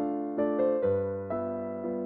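Background piano music: single notes and chords struck about twice a second, each fading before the next.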